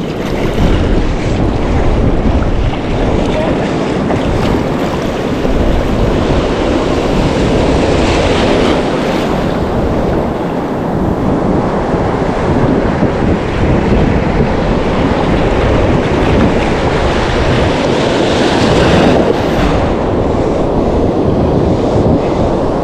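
Surf breaking and washing up the beach, with wind buffeting the microphone in a heavy low rumble. The wash swells louder twice, about eight and eighteen seconds in.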